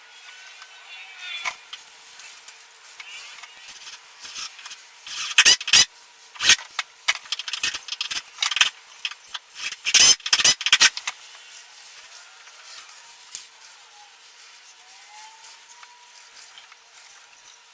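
Irregular sharp knocks and clatter, bunched from about five to eleven seconds in, with fainter rubbing and scraping before and after.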